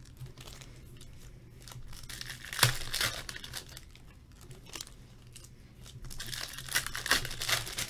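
Foil trading-card pack wrappers being torn open and crinkled, in two bursts of rustling: one about two and a half seconds in, the other in the last two seconds.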